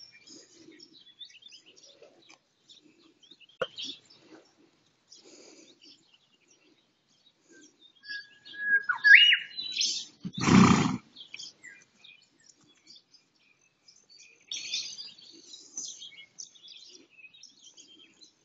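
Birds chirping in scattered short calls. Near the middle comes a single rising squeak, then about a second later one short, loud noise, the loudest sound here.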